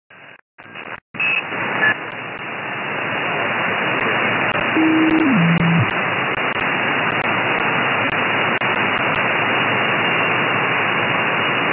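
Shortwave SSB receiver hiss and static from an RSPduo software-defined radio on a Mini Whip active antenna, tuned to a band with no signals, dropping out briefly a few times in the first second or so as the frequency is changed. About five seconds in, a short low whistle steps down in pitch and stops as a carrier is tuned past.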